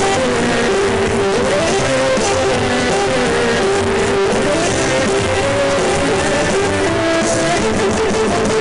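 Loud, continuous pop-rock music with guitar playing.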